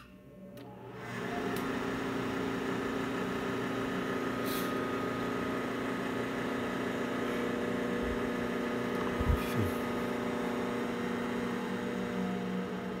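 Capacitor-run electric fan motor switched on through a variable speed controller: a click, then the motor spins up over about a second and runs with a steady hum. A brief low knock about nine seconds in.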